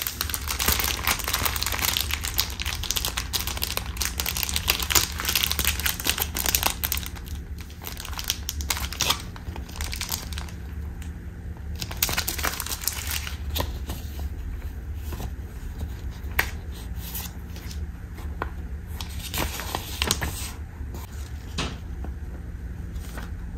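Cellophane packaging and paper wrapping crinkling as they are handled, dense and continuous for the first several seconds, then thinning to scattered crackles and light taps.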